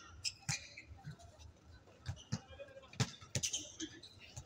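A basketball bouncing on a hard outdoor court: scattered thumps at uneven intervals, the loudest about three seconds in.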